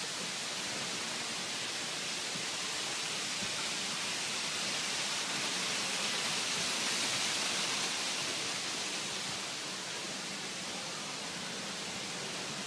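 Steady rushing hiss with no distinct events, swelling to its loudest a little past the middle and then easing off.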